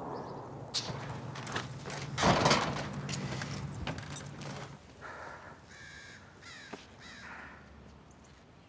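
Motorcycle engines running low, with a louder rush about two seconds in; they fade out about five seconds in. Then several harsh crow caws.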